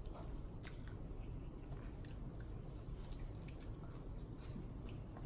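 Close-miked chewing of crispy fried food, with irregular crunches and crackles every fraction of a second.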